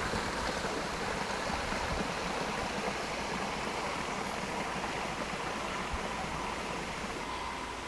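Steady rushing noise, even throughout with no distinct events.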